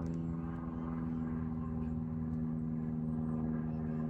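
A steady mechanical hum that holds one even pitch throughout.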